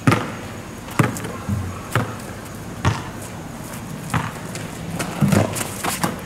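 Basketball dribbled on an asphalt court, bouncing about once a second; the first bounce is the loudest.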